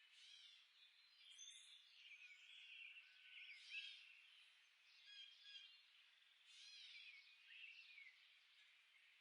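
Faint mixed songbird chorus: several birds chirping and trilling over one another, with short overlapping phrases and no pause.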